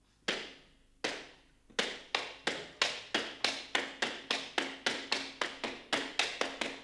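Wooden threshing flails beaten on a wooden stage floor in the rhythm of threshing grain: three single knocks about a second apart, then a steady, quicker beat of about three knocks a second.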